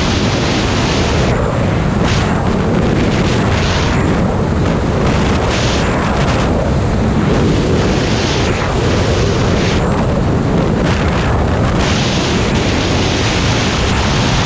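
Wind rushing and buffeting over the microphone of a snowmobile moving at trail speed, mixed with the sled's engine and track noise; the upper hiss thins and thickens every second or two.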